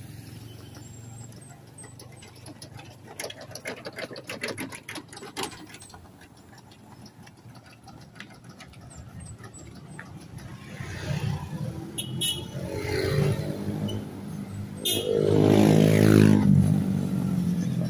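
Road traffic, with a motorcycle engine passing close: its note rises and grows loud from a little past halfway and is loudest near the end. Earlier there is a short run of quick rattling clicks.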